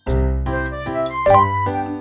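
Background music: a light melody of short notes changing every fraction of a second over a low bass line.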